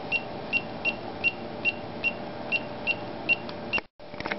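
Short, high electronic beeps from a J1939 simulator repeating evenly about two and a half times a second while its down button steps the gauges down, over a steady low hum. The beeping cuts off suddenly near the end, followed by a few faint clicks.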